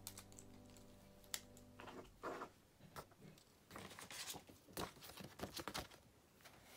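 Faint handling of study materials on a desk: scattered light taps and clicks with brief paper rustles as books, pages and a plastic red sheet are moved. Soft piano music fades out over the first two seconds.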